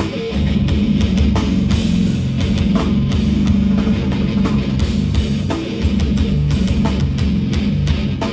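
Hardcore band playing live: loud distorted electric guitars and a drum kit in a heavy, driving passage.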